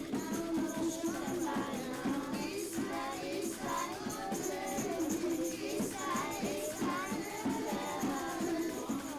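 Music with singing voices and a light jingling high percussion.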